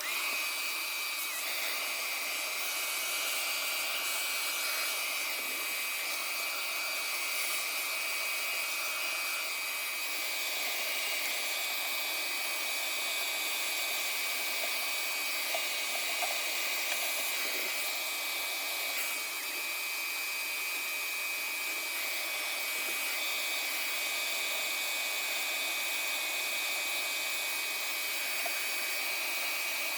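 Steady rushing-air noise from a small electric motor-driven blower, with a constant thin high whine over it.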